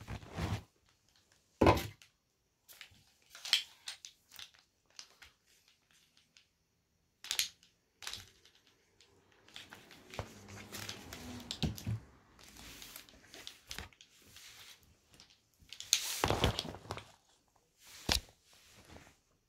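Handling noise from a plastic tripod dolly and its caster wheels as they are fitted by hand: irregular knocks and clicks, the loudest a couple of seconds in and near the end, with a few seconds of rustling and scraping in the middle.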